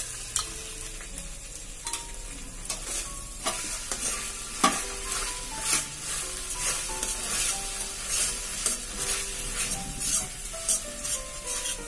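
A metal spatula scrapes and stirs frying spice paste and tomato sauce around a stainless steel kadai, with a light sizzle underneath. The stirring comes in repeated strokes, and one sharper scrape lands about four and a half seconds in.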